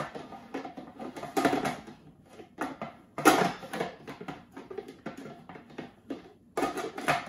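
Irregular plastic clicks and knocks from the bowl and lid of a Bosch MCM 3200W food processor being twisted and pressed onto the base, with louder knocks about a second and a half in, a little after three seconds, and near the end. The lid is snagging and not locking into its catch, so the safety interlock keeps the motor from running.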